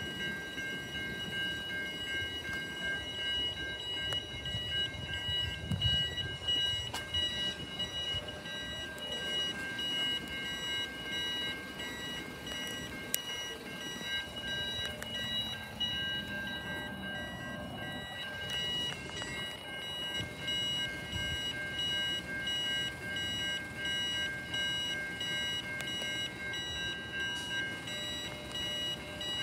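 Railway level-crossing warning bells ringing steadily with the booms down and no train passing, a continuous high electronic ringing of several tones; the filmer thinks it is a crossing malfunction.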